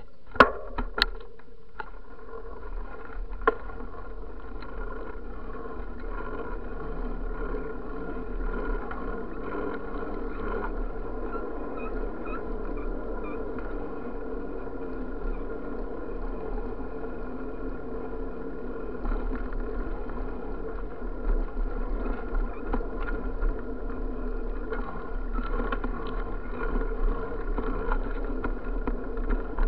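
Steady rolling noise of a bicycle ride over asphalt and concrete sidewalk, with a few sharp knocks in the first few seconds. It grows a little louder and rougher about two-thirds of the way through.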